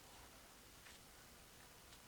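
Near silence: faint background hiss, with one faint tick about a second in.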